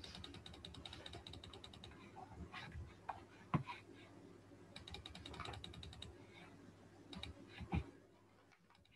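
Computer mouse in use at a desk: two runs of fast, even scroll-wheel ticks, one at the start and one about five to six seconds in, and a few sharper button clicks, the loudest about three and a half seconds in. A faint steady hum lies underneath.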